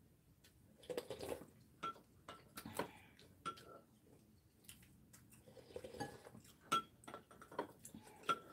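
Metal chopsticks and a spoon clinking lightly against ceramic bowls and plates while eating, several short ringing clinks spaced out over the seconds.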